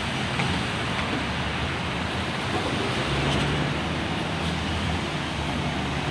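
Steady road traffic noise, an even hiss and low rumble with no single event standing out.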